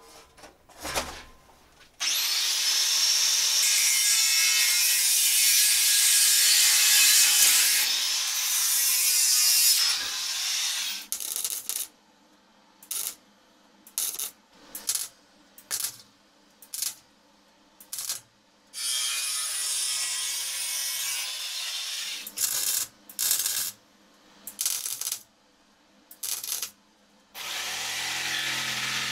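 Metalworking power tools in sequence. An angle grinder cuts steel for about eight seconds, then comes a run of short arc-welding tack welds, about a second each, with one longer weld in between. Near the end a handheld electric jigsaw starts cutting a sheet panel with a steady motor sound.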